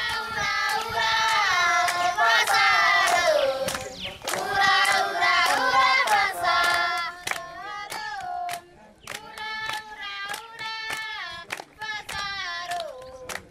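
A group of schoolchildren singing a song together while clapping their hands in time. The singing is loudest in the first half; the claps stand out more in the second half.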